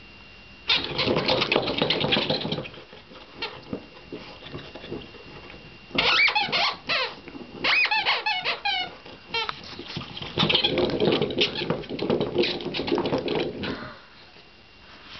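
Rubber chicken squeaky toy squeaking under a West Highland white terrier's chewing, in three spells of rapid squeaks; the middle spell has separate short squeaks that rise and fall in pitch.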